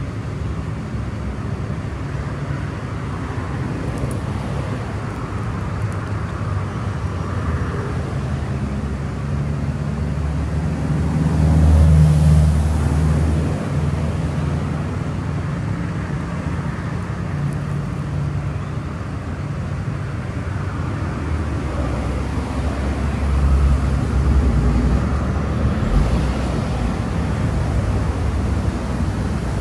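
Outdoor background of steady, low distant road-traffic rumble, swelling as a vehicle passes about twelve seconds in and again near the end.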